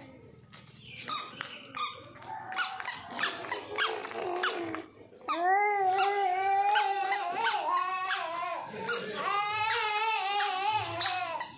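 Puppy yipping and squeaking, then two long, wavering, high whining howls from about five seconds in, each a few seconds long.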